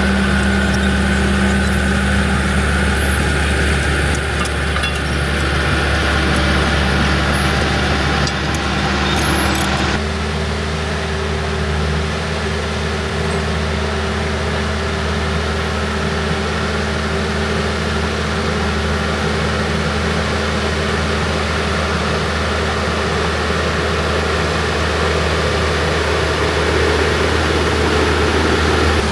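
John Deere bulldozer's diesel engine running steadily while working dirt. Its steady note changes abruptly about ten seconds in.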